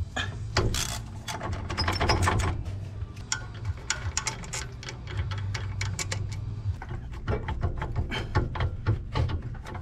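Hand ratchet clicking in quick runs, backing out the brake caliper bolts.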